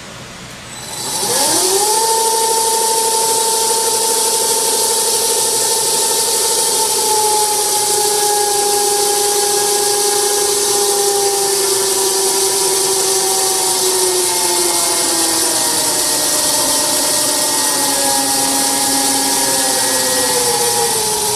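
Pandjiris 30-6AB welding positioner's variable-speed table drive turning the table and welding chuck in the opposite direction. The motor whine rises as it starts about a second in, then holds steady, its pitch slowly sinking over the second half.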